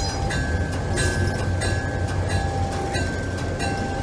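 GE U25B diesel locomotive moving slowly with its bell ringing, about one stroke every two-thirds of a second, over the steady drone of the running diesel engine. The wheel flanges squeal on the rails in a steady high tone that breaks off briefly about three seconds in.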